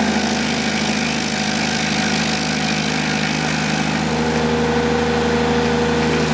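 Kubota diesel engine of an FSI D30-470 hydraulic stump grinder running steadily; a higher steady tone joins about four seconds in.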